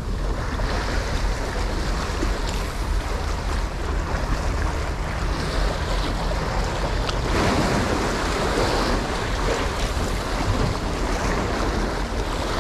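Sea waves washing and breaking against breakwater rocks, with wind rumbling on the microphone; one surge comes in louder a little past the middle.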